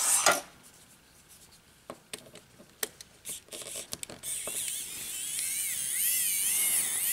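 Small screwdriver tapping and clicking against the plastic cube's tiny case screws. About four seconds in, a small electric screwdriver starts running with a high whine that wavers in pitch as it backs the screws out.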